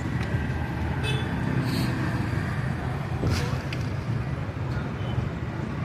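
Steady low rumble of motor vehicles, with a few light clicks and a brief hiss about three seconds in.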